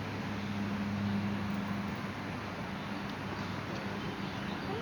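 Steady outdoor background noise with a constant low hum underneath.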